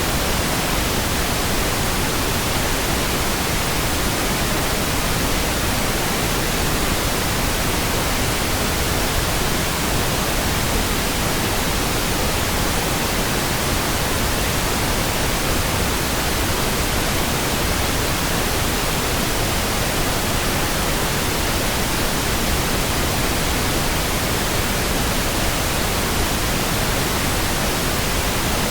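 Steady pink noise: an even, unchanging hiss spread across all pitches, with no tones, breaks or sudden sounds.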